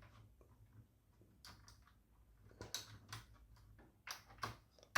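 Faint, scattered plastic clicks and taps, about half a dozen, from a keycap with a Costar wire stabilizer being pressed down onto its switch on a TVS Gold Bharat keyboard.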